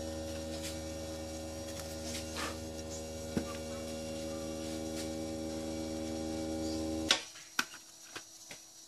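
Steady electrical hum from mains-powered bench equipment, cut off abruptly with a click about seven seconds in, then a few light clicks from plastic parts being handled.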